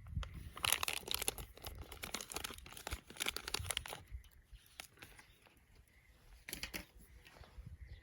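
Dry tinder crackling and crinkling as it is crumpled and broken by hand, in two bursts: a long one from about half a second to four seconds in, and a short one near the end.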